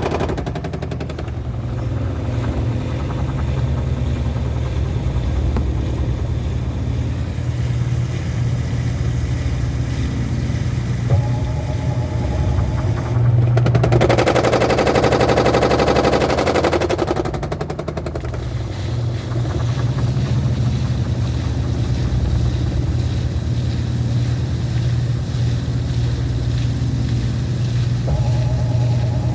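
Midea 13 kg washing machine in its spin cycle, with a steady low hum under a loud, rapid rattling and knocking; very noisy spinning, the fault being shown. It grows louder for a few seconds about halfway through.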